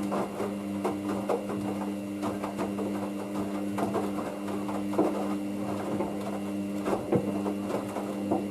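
Hoover DYN9144D3X front-loading washing machine in its main wash, its motor humming steadily as the drum turns, with frequent irregular knocks and clicks.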